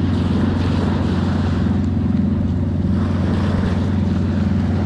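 Motorboat engine running with a steady low drone, over the wash of small waves on the shore.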